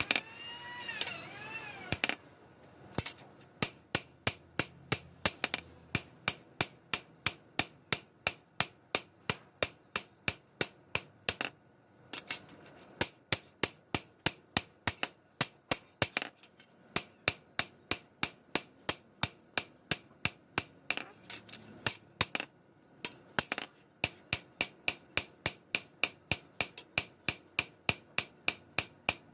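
Hammer striking steadily at about three blows a second, in long runs with a couple of short pauses, each blow sharp and ringing.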